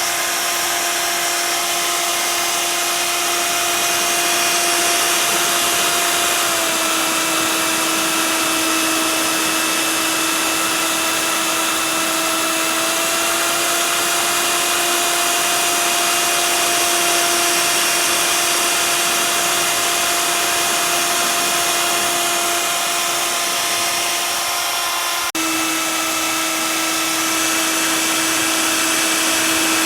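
CNC router spindle cutting expanded PVC sheet: a steady high whine over a constant hiss. The pitch sags slightly a couple of times, and there is a brief break about five seconds from the end.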